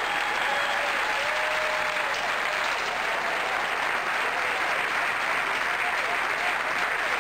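A live theatre audience applauding steadily, with a few voices calling out over the clapping.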